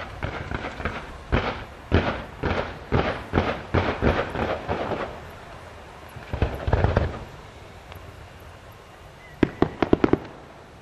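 Fireworks going off: a run of sharp bangs about two a second for several seconds, a denser cluster of bangs a little later, and a quick volley of about six cracks near the end.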